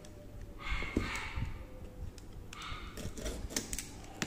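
Cardboard box being cut open with a snap-off utility knife: two short scraping cuts through the tape and wrap, about a second in and again near three seconds, with light clicks and knocks as the box is handled.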